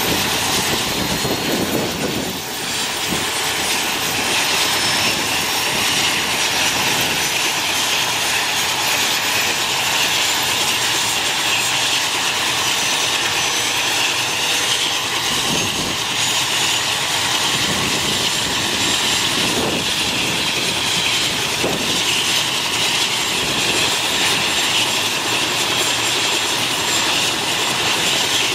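Mil Mi-17 helicopter's twin turboshaft engines running, a steady loud turbine noise with faint high whines slowly rising in pitch.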